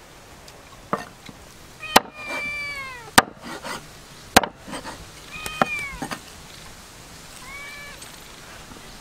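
A cat meows three times, in short calls that rise and fall, while sharp chopping strokes land about six times in the first six seconds.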